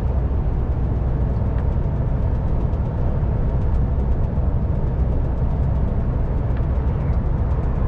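MAN TGX truck driving at steady speed on a motorway: a constant low engine drone with tyre and road noise.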